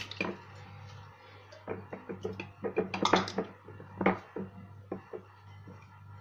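Small whole lemons being pressed and packed into glass jars by hand: irregular soft taps and clicks of fruit and fingers against the glass, with a low steady hum underneath.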